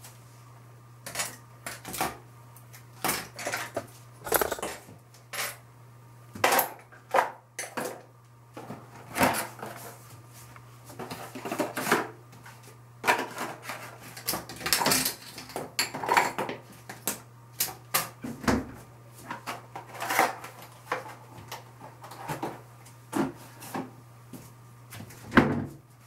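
Small hard objects handled and set down on a hard surface: irregular clicks, knocks and clatters, some in quick clusters, the loudest near the end, over a steady low hum.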